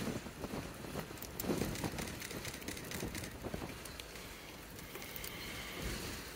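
Gusty wind rushing over the microphone, with scattered light crackles.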